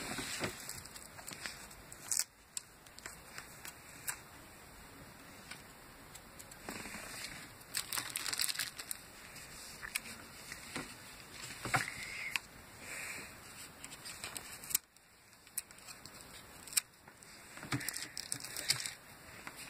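Plastic packaging crinkling and rustling as the bands and protective film are peeled off a new Casio fx-300ES Plus scientific calculator. The rustling comes in irregular bouts, with scattered sharp clicks and taps of handling.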